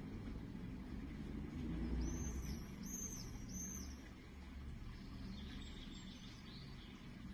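Outdoor ambience: a low steady rumble, with a small bird chirping three times, high and quick, about two to three and a half seconds in.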